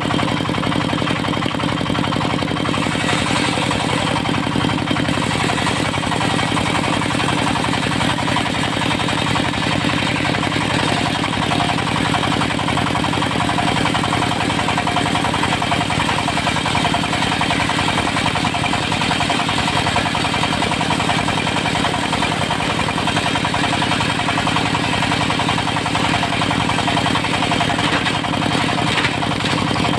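Diesel engine of a portable circular sawmill running steadily at a constant speed.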